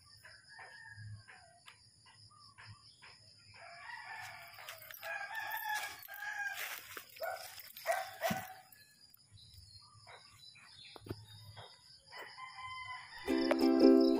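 Rooster crowing, drawn-out calls starting about three and a half seconds in and lasting several seconds, over a steady high-pitched whine.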